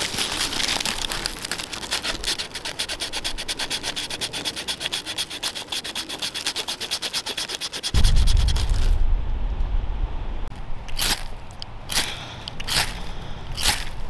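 A steel knife blade scrapes birch bark in rapid, even strokes, raising fine shavings for fire tinder. About eight seconds in the scraping stops and a low rumble comes in. Near the end a ferrocerium rod gives several short, sharp strikes as it sparks the birch-bark tinder alight.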